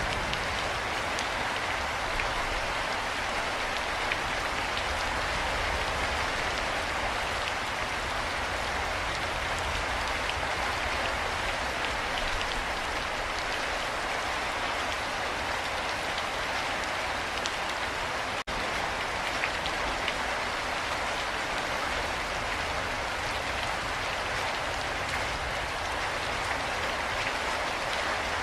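Steady, even rainfall pattering on surfaces, with a momentary dropout about two-thirds of the way through.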